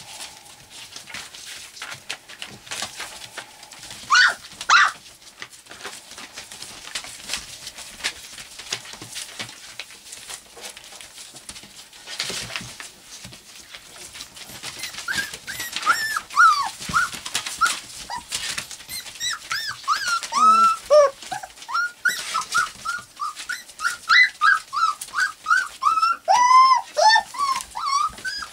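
Four-week-old golden retriever puppies whining and yipping in short high-pitched cries, with two loud yelps about four seconds in and the cries coming thick and fast in the second half. Newspaper rustles and scratches under their paws throughout.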